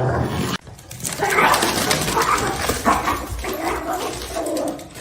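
A dog vocalizing, with drawn-out, wavering sounds from about a second in, after an abrupt break about half a second in.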